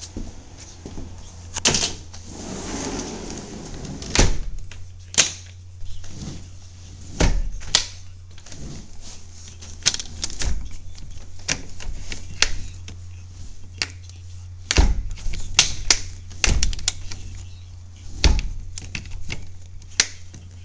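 Irregular knocks, thuds and sharp clicks of footsteps and handling on wooden deck boards, over a steady low hum.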